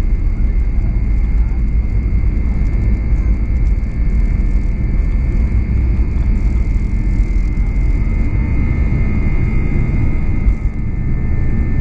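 Boeing 737-800's CFM56 turbofan engines running at take-off thrust during the take-off roll, heard from inside the cabin. A loud, steady low rumble with a steady high whine over it.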